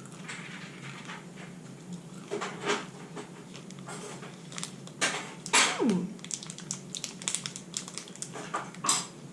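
Chewing and crunching on a small hard-shelled chocolate candy with a gummy centre, heard as irregular small clicks and crunches. A little past the middle comes one short hum that falls in pitch.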